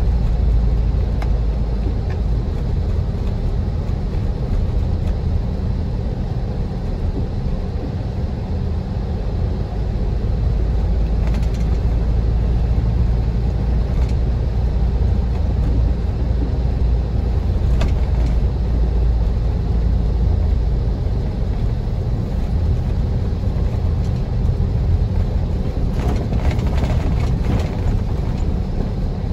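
A car driving over a rough, snow-rutted road: a steady low rumble of engine and tyres, with a few faint knocks and rattles, clustered near the end.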